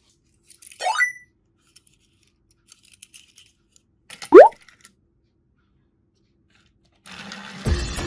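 Two short rising cartoon whoop sound effects: a quieter one about a second in and a loud, quick one just after four seconds, with a few faint plastic clicks between. Music with a beat comes in near the end.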